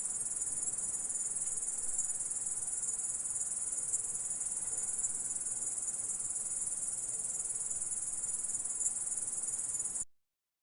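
Grasshopper stridulating: a steady, high-pitched insect trill. It cuts off suddenly near the end.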